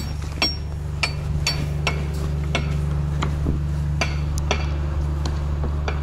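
Sharp metallic clicks, clinks and knocks, roughly two a second, as a semi-trailer's rear door latch is worked and the steel door swung open, over a steady low hum.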